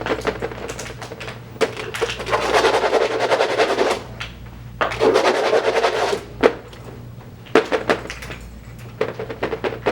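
Rustling and scattered light taps and clicks, with two louder stretches of rustling about a second and a half long.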